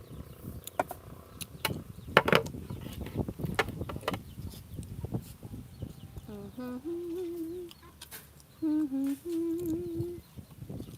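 A rooster crowing twice, each crow opening with quick rising notes and ending on a long held note. Before the crows there are scattered sharp clicks and crackles.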